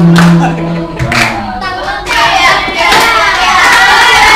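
A group of young people singing together, holding the final note for about a second, with hand claps roughly once a second; then many voices calling out and chattering at once over further claps.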